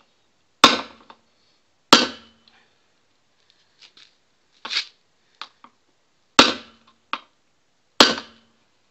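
Metal-on-metal hammer blows: a hammer strikes the head of a second, wedge-headed hammer held against the bent flange of a stamped-steel wheel rim, hammering the bend back into a round shape. There are four sharp ringing blows, with lighter knocks in between as the tool is repositioned.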